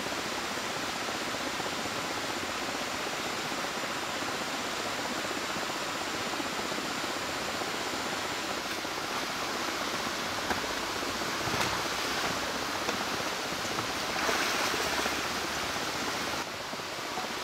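River rapids rushing: a steady hiss of white water, a little louder about two-thirds of the way through and dropping slightly near the end.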